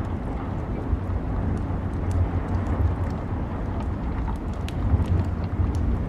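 Log fire crackling, with scattered sharp pops, over a steady wash of rain and a continuous low rumble.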